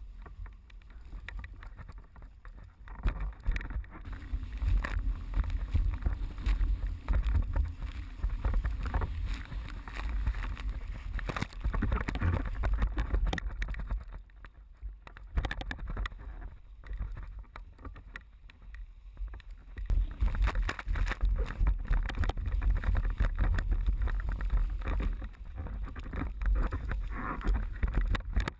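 Water rushing and splashing past a slalom sailing board at speed, under heavy wind buffeting on the microphone that swells and eases, dipping briefly about halfway through.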